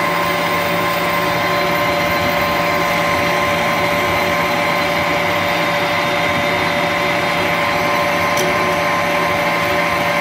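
Manual metal lathe running under power while turning down a tough bar to diameter: a steady machine whine with several held tones over the hiss of the cut.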